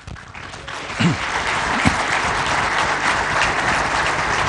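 An audience applauding, swelling over the first second and then holding steady.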